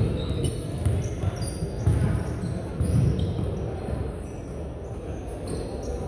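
A basketball dribbled on a hardwood gym floor, with low thumps about once a second for the first three seconds, then quieter.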